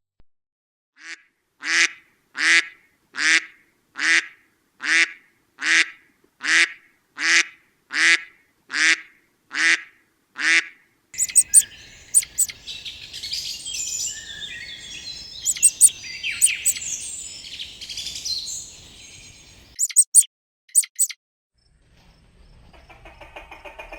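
A duck quacking in a steady series, about fourteen short quacks a little over one a second, followed by several seconds of high, busy chirping and twittering.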